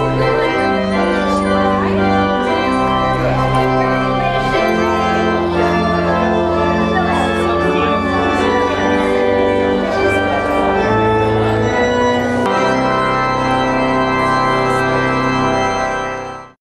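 Organ playing music in held chords that change every second or two, then fading out quickly near the end.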